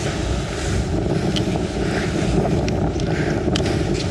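Steady wind buffeting the microphone over a low rumble, with a faint steady hum and a few small clicks.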